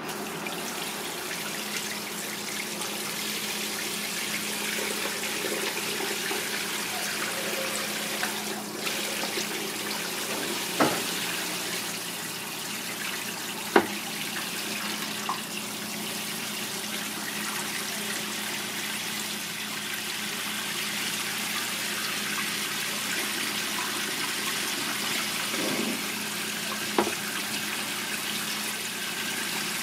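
Sink tap's shower-head spray running steadily over a cuttlefish and the cook's hands as it is rinsed on a cutting board. A few sharp knocks stand out, the loudest about halfway through.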